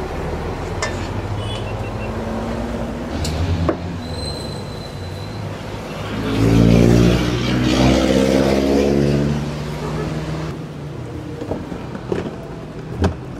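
Street traffic: a motor vehicle engine running steadily close by, swelling to its loudest for a few seconds in the middle as it passes and then fading. A few sharp clicks sound over it.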